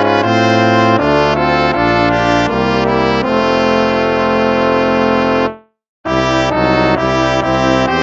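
Instrumental hymn music in slow, held chords. One phrase fades out about five and a half seconds in, and after a brief pause the next phrase begins.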